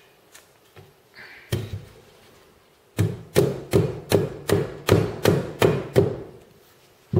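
Silicone-headed hammer knocking the corner joints of a wooden canvas stretcher frame together: a single knock, then a quick, even run of about a dozen knocks, three or four a second, as the bars are driven home.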